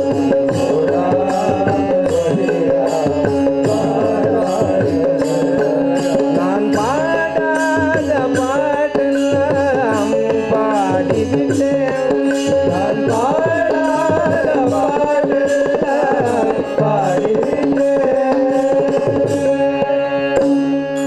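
Tamil devotional bhajan music: a harmonium holding a steady drone under the tune, with a hand drum keeping a dense rhythm. In the middle, a voice glides through long ornamented phrases of the melody.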